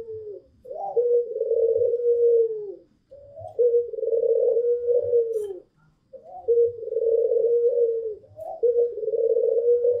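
White Barbary dove (puter) cooing repeatedly: about four long coos. Each coo is a short rising note followed by a long steady coo that drops in pitch at the end.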